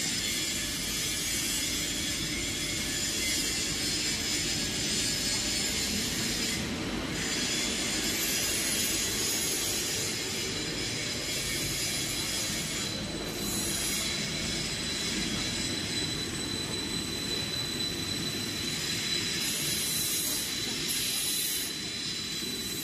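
PP/HDPE monofilament extrusion line running: a steady machine drone with a high hiss over it and a thin high-pitched whine that becomes clearer about halfway through.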